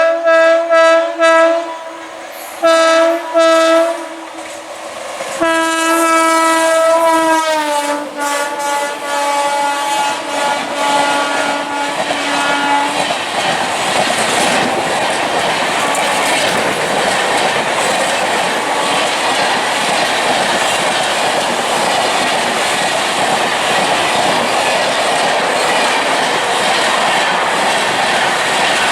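An Indian Railways locomotive horn sounds a pattern: a quick run of short toots, two more toots, then a long blast whose pitch drops as the locomotive passes. The express then rushes by with a steady rumble and wheel clickety-clack.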